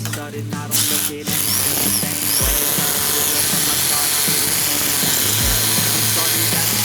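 A power tool running steadily, starting about a second in, over background music with a slow beat.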